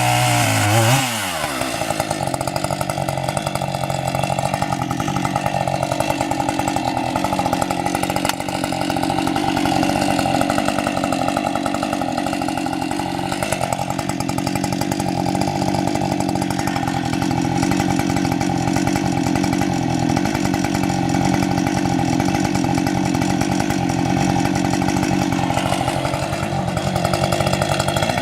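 Husqvarna 550 XP two-stroke chainsaw at high revs. Its pitch drops about a second in as it settles under load, then it runs steadily through a long cut in hard Arbutus firewood rounds, and the note changes again near the end.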